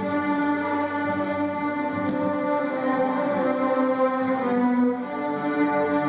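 A string ensemble of violins and cellos playing bowed music in long held notes that move to new pitches every second or two.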